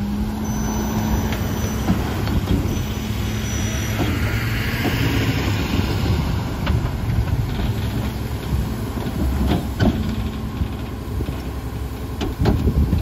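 Autocar garbage truck with a McNeilus rear-loader body running its packer: the engine is held at raised revs to drive the hydraulics while the blade sweeps and crushes boxes and bags in the hopper. The steady engine tone drops about halfway through, and clanks and knocks follow, loudest near the end.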